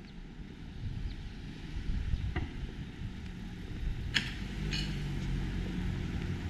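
Street ambience: a steady low vehicle rumble, with an engine hum swelling in the second half. A short ping comes about two seconds in, and two brief sharp clicks about four seconds in.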